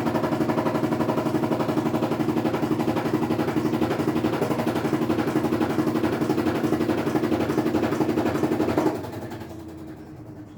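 Samsung washing machine's drain pump running with a huge, fast rattling buzz over a steady hum: the noise fault of this new machine during draining. About nine seconds in it cuts off, and a fainter hum slides down in pitch as the pump winds down.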